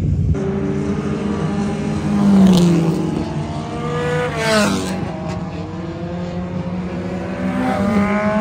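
Several dirt-track race car engines running at high revs as cars lap the oval. About two seconds in and again near five seconds a car passes closer and louder, its pitch dropping as it goes by.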